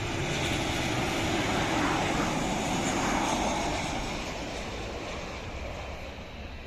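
Boeing 737 twin-engine jet airliner on final approach, its engine noise building to a peak about two to three seconds in and then fading as the aircraft moves away down toward the runway.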